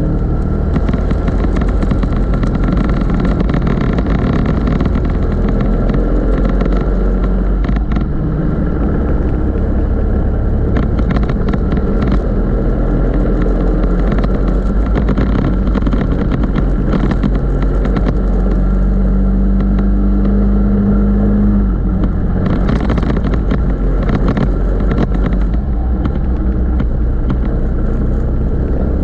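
Racing go-kart engine running hard at speed, its note changing with the throttle around the lap. Near the two-thirds point one high steady note is held for a few seconds and then cuts off sharply as the throttle is shut.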